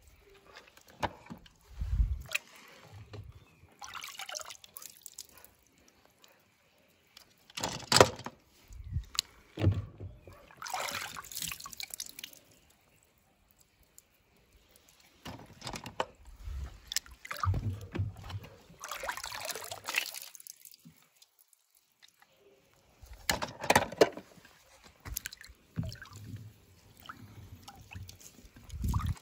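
Water splashing, sloshing and dripping in a shallow plastic tub as a hand dips small toy monster trucks in and lifts them out, coming in irregular bursts with short pauses between.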